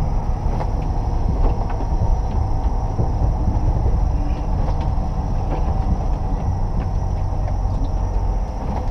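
Loaded road-train truck's diesel engine running with a steady low rumble, heard from inside the cab while driving over a rutted dirt road, with scattered light knocks and rattles from the cab.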